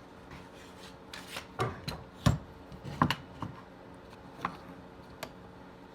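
Irregular scrapes, clicks and knocks of hand tools and metal parts being handled on a workbench, the loudest a little past two seconds and at three seconds.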